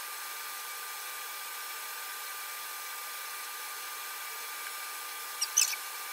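A small electric blower motor running steadily: an even rushing hiss with a thin, constant whine above it. A couple of faint clicks come about five and a half seconds in.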